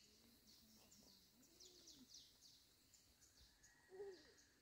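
Faint birdsong over near silence: a bird repeating short, high, falling chirps, several a second.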